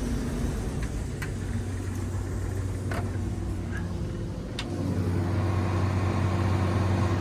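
Diesel engine of a combine harvester running steadily, growing louder and steadier about five seconds in, with a few faint clicks.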